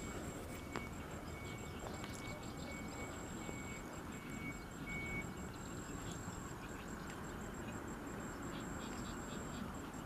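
An insect trilling steadily in a high, pulsing tone over a low outdoor background hiss.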